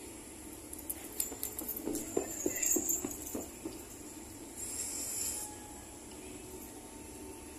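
A quiet lull in a large room: faint room tone with a scattered run of light clicks and taps in the first half, and a brief faint hiss a little later.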